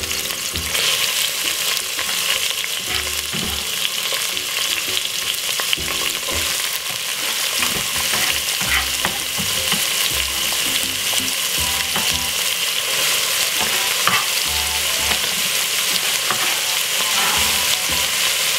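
Chopped peppers, onion and tomato frying in hot olive oil in a tall metal pot: a steady sizzling hiss with scattered clicks and soft knocks.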